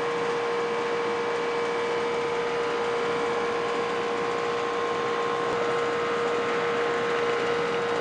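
Air-conditioning condensing unit running: a steady hum with a constant mid-pitched tone over an even hiss.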